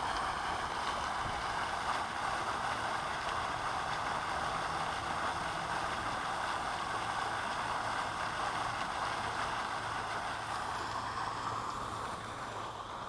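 Waterfall: the steady rush of falling water, easing slightly near the end.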